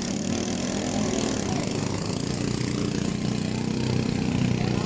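Several small gasoline engines of racing pump boats running together at a steady pitch.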